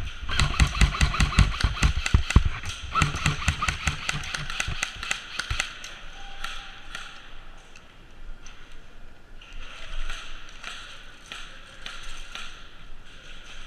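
Airsoft guns firing in rapid bursts of clicking shots: one long run of fire for the first five seconds or so, then scattered shorter bursts and single shots.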